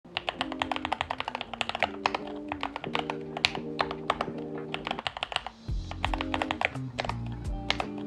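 Fast, steady typing on a Keychron K8 Pro keyboard: factory-lubed Gateron Jupiter Red linear switches under OSA double-shot PBT keycaps, giving a quick run of key clacks that pauses briefly a little after five seconds. Background music plays under it, and a deeper bass comes in just after the pause.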